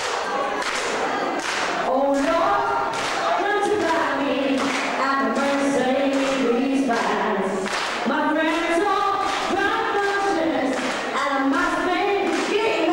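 A lead singer and the audience singing a melody together, over a steady clapped beat of about two claps a second.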